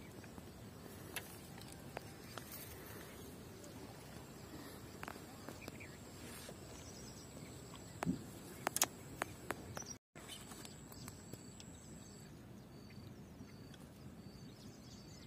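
Quiet outdoor background hiss with a few faint clicks and taps from a spinning rod and reel being handled, a short cluster of them about eight seconds in. Near the end a faint high peep repeats about every half-second.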